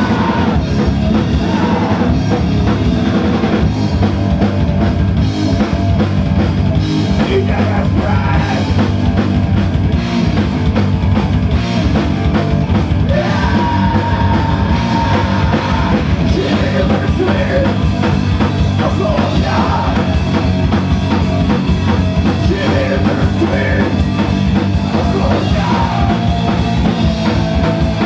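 Metal band playing live at full volume, with a pounding drum kit and a sung or shouted vocal line that comes through around the middle, heard through a phone's microphone.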